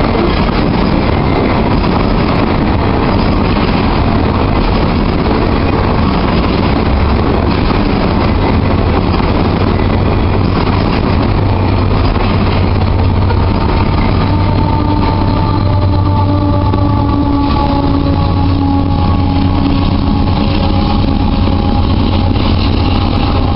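Freight train of loaded grain hopper cars rolling past close by, a steady heavy rumble of steel wheels on the rails. About halfway through, a diesel locomotive pushing at the rear of the train comes by. Its engine adds a hum and whine that sag slightly in pitch as it passes.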